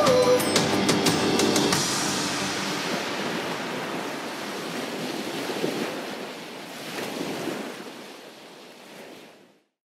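Sea waves washing with wind, an even rush that slowly fades out toward the end. The tail of a song with guitar ends about two seconds in.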